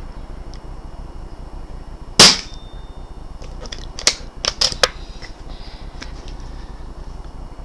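BSA R10 pre-charged pneumatic air rifle firing a single shot about two seconds in, a sharp crack with a short tail. A couple of seconds later comes a quick cluster of sharp metallic clicks, the rifle's action being worked to load the next slug.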